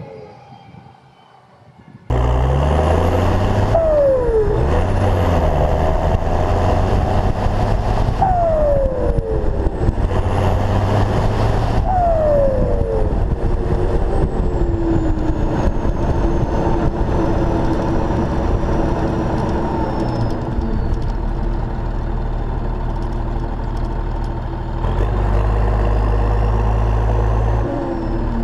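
New Holland TS115 tractor's turbo diesel engine running under way, heard close up from the cab roof. Its turbocharger whistle falls in pitch three times over the first half, the last fall trailing off slowly, over a steady low engine drone that grows louder near the end.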